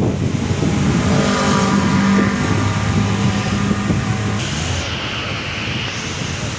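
Diesel engine of a large intercity coach running as the bus pulls slowly away, with a whine that rises in pitch over the first few seconds. A hiss starts suddenly about four seconds in and lasts a second or two.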